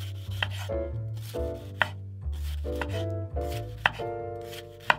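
Chef's knife slicing a red bell pepper into strips on a bamboo cutting board: the blade cuts through the crisp flesh and hits the board in a few sharp taps, about four of them, spaced one to two seconds apart. Instrumental background music plays underneath.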